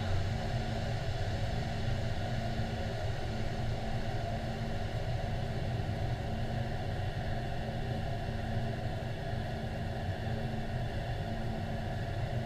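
Steady, even engine rumble with a constant low hum running under it; no blast or other sudden sound.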